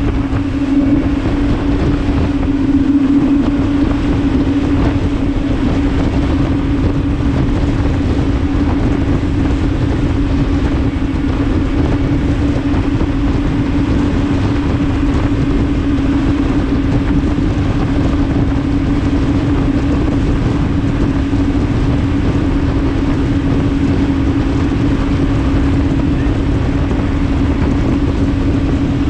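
Speedboat engine running steadily at speed, a constant drone, over the rushing of wind and wake spray.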